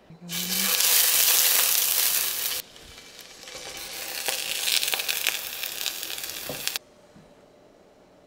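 Buttered ciabatta bun halves sizzling as they toast in a hot cast-iron skillet. There are two stretches of loud sizzling: the first drops off abruptly after about two and a half seconds, and the second builds up and then cuts off suddenly about seven seconds in.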